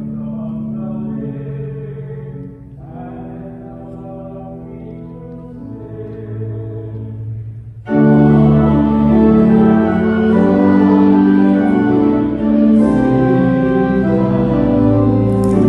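Church organ playing long held chords quietly, then about halfway through coming in much louder and fuller, with many more stops sounding.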